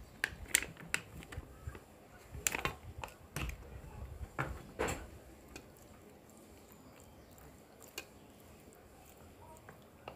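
Light, scattered clicks and taps of a utensil against an aluminium baking dish while tomato sauce is spread over the meat layer, most of them in the first half.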